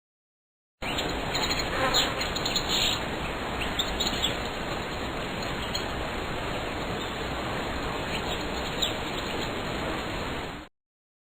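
Outdoor nature ambience sound effect: a steady hiss-like bed with scattered short bird chirps, which starts and cuts off abruptly.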